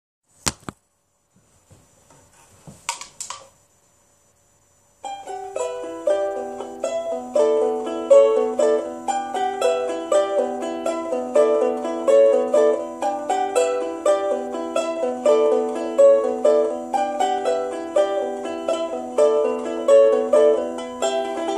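Charango played solo: a quick folk tune of ringing plucked notes that begins about five seconds in. Before it, a couple of short knocks and then a pause.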